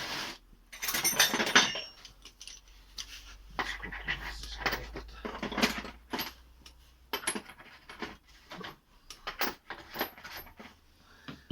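Irregular metal clinks, knocks and scraping of hand tools on a VAZ-2115 steering rack as it is taken apart.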